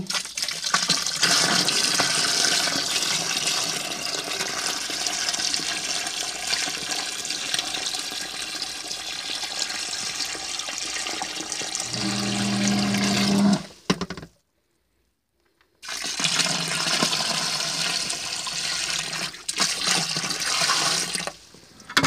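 Water gushing from a drain pipe into a sump pit, splashing steadily as the pit fills. About twelve seconds in, a low hum joins briefly, then the sound drops out for a second or so before the gushing resumes.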